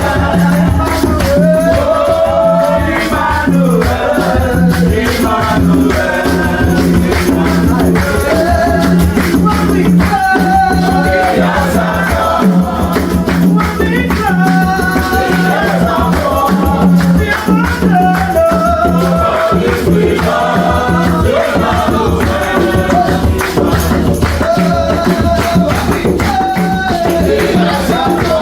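Gospel worship music with a rattling shaker keeping a steady rhythm over a held bass note and a wavering melodic lead line.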